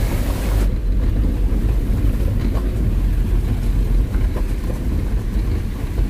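Car driving slowly on a gravel road, heard from inside the cabin: a steady low rumble of engine and tyres on the stones. A hissing rush on top of it cuts off abruptly under a second in.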